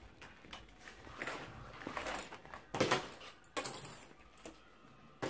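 Rustling and soft knocks of synthetic leather (corino) and clear plastic sheet being handled and turned over on a cutting mat: a few brief rustles, the loudest about three seconds in.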